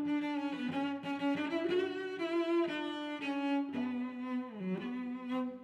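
Background music led by bowed strings, a cello-like melody moving from note to note.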